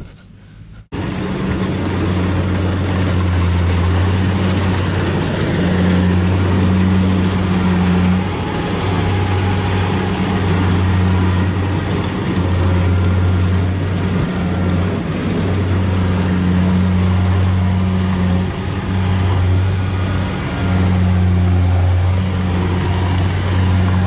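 Tracked rice combine harvester running at close range: a loud, steady engine drone with a low hum, setting in abruptly about a second in and dipping only briefly now and then.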